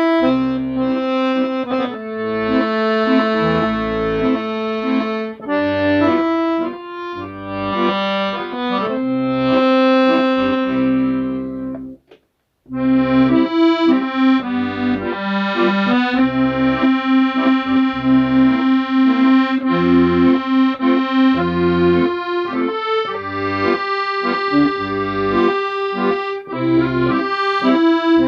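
Solo accordion playing a slow melody over left-hand bass notes and chords. The playing stops for a brief pause about twelve seconds in, then carries on.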